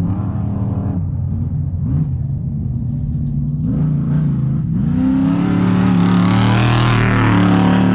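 Off-road race vehicle's engine revving, its pitch dropping and climbing again through gear changes. About five seconds in it gets much louder as the vehicle comes close, with a wide rush of noise over the engine.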